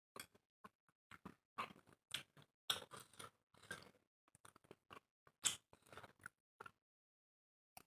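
Quiet, irregular chewing and biting sounds of people eating dry roti with chicken curry: many short, soft crunches and mouth noises with brief silences between.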